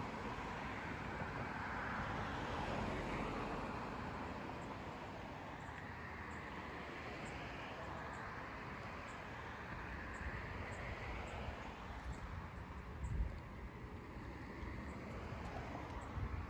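Steady vehicle rumble and rush with slow swells that rise and fall, like vehicles moving past, and a brief low thump about thirteen seconds in.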